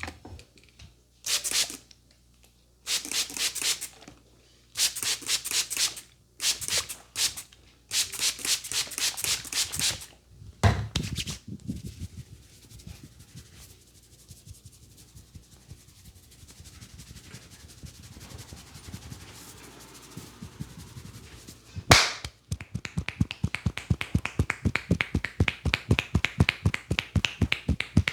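Hands rapidly tapping and slapping on a head and neck in a traditional Indian head massage, in bursts of quick strikes. A quieter stretch of rubbing follows, then a single loud, sharp snap about two-thirds of the way in, and a long regular run of quick strikes.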